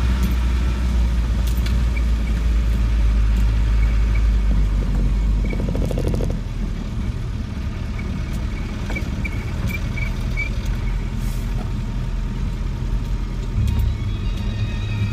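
Land Rover 90's diesel engine heard from inside the cab while driving along a rough lane, a steady low drone. The drone drops away about five seconds in and builds again near the end, as the throttle eases and picks up.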